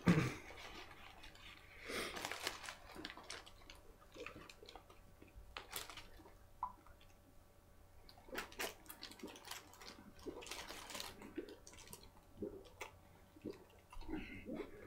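A person eating fast, chewing McChicken sandwiches with wet, squishy mouth sounds, plus scattered short clicks and rustles.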